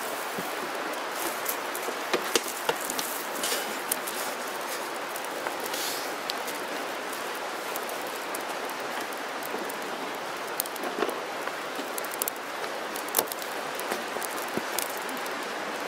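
Fire of dry twigs and kindling catching and burning: a steady hiss with many irregular sharp crackles and an occasional louder pop.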